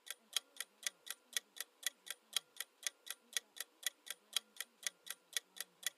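Countdown timer sound effect of a ticking clock, at about four even ticks a second, marking the time left to answer.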